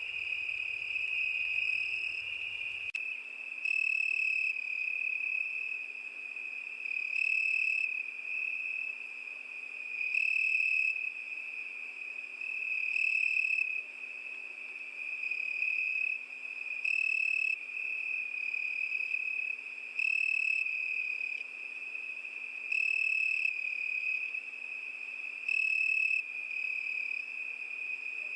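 Crickets chirping in a steady high trill, swelling louder for about a second roughly every three seconds.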